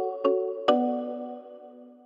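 Background music: a chord struck twice within the first second, each time ringing on and slowly fading away.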